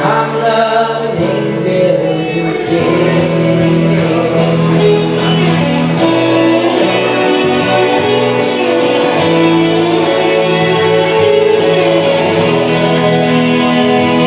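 A slow pop ballad playing: sustained chords with guitar and a singing voice holding long notes.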